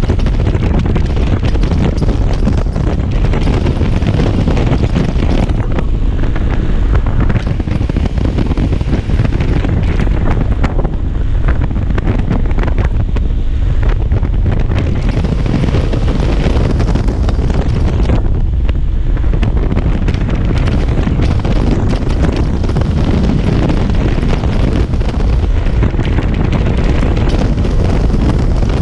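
Heavy wind buffeting on the microphone at riding speed on a Kymco Xciting 250i maxi-scooter, with the scooter's engine and road noise underneath. It is loud and steady, with brief dips in the gusting about a third of the way in and again past halfway.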